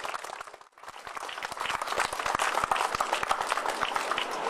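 Audience applauding, dense clapping that drops out briefly just under a second in and then picks up again.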